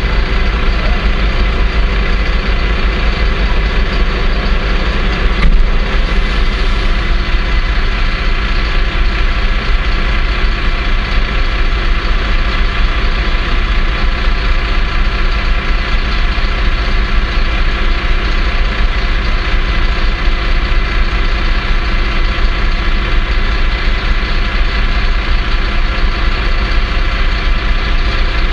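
Car engine idling steadily, heard from inside the parked car's cabin, with a single short click about five and a half seconds in.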